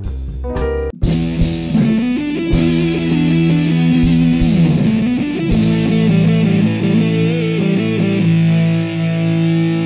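Intro music: a rock track with electric guitar that kicks in suddenly about a second in, with several sharp accents over held notes.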